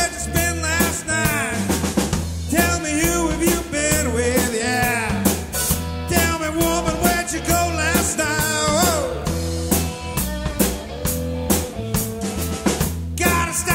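A live blues-rock band plays an instrumental break. An amplified harmonica, blown into a hand-cupped microphone, plays a solo with bent and sliding notes over a steady drum-kit beat and bass line.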